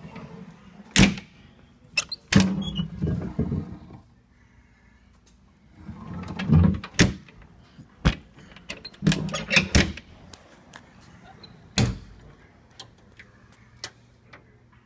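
Irregular sharp knocks and clunks from a fire engine's cab door and fittings being handled close to the microphone, with rustling between them.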